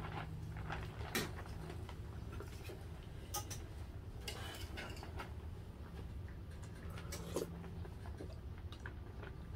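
Faint, scattered clinks and taps of metal spoons against ceramic bowls and plates while eating, over a low steady hum.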